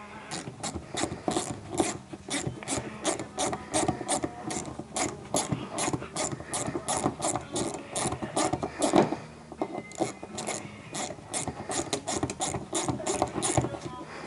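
Hand ratchet wrench with a 7 mm socket clicking rapidly as it backs out small fasteners, about three to four clicks a second, with a short pause partway through before the clicking resumes.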